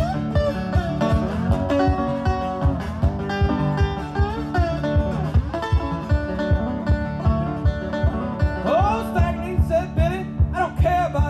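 Resonator guitar fingerpicked in a driving country-blues passage, with a steady thumbed bass beat under the plucked melody notes. A man's singing voice comes in near the end.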